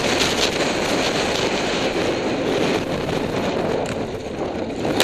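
Motorcycle riding on a gravel road, heard through a helmet camera: steady wind rush over the microphone mixed with engine and road noise.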